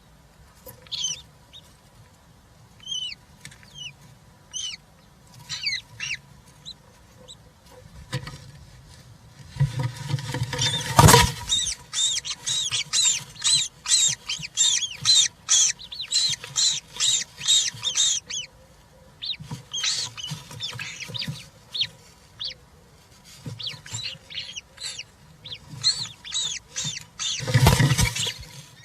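European roller chicks calling in the nest box: short, scattered calls at first, then a fast, busy run of calls from about ten to eighteen seconds in, and more calls after. A loud rustling knock about eleven seconds in, and another near the end.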